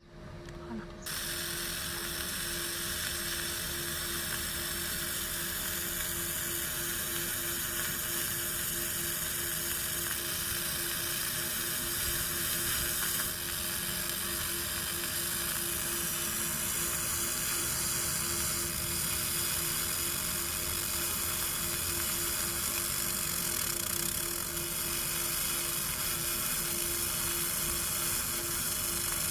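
Laser marking machine running as it marks a concrete surface, starting about a second in: a steady hiss with a fast, even pulsing tone.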